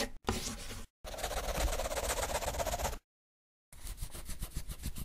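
Pencil scribbling on paper, a sound effect for a line being sketched: a short scratch, a longer one about a second in lasting some two seconds, and another starting near four seconds in, each cut off sharply.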